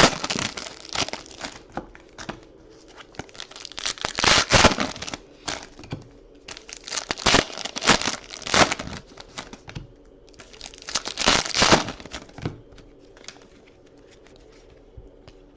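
Wrappers of 2015-16 Panini Prizm basketball card packs being torn open and crinkled by hand, in about four bursts of tearing with short pauses between them.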